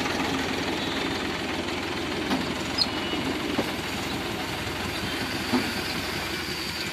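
Ford 3600 tractor's diesel engine running as the tractor moves off at low speed, getting slightly quieter, with a few short clanks.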